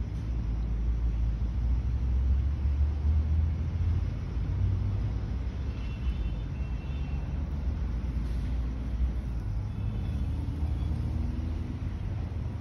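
Steady low outdoor rumble, swelling a little for a few seconds about a second in.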